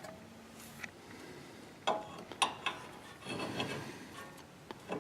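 Metal parts clinking and rubbing as a new outer tie rod end is handled and fitted into the steering knuckle: a few sharp clinks with a short scrape in between.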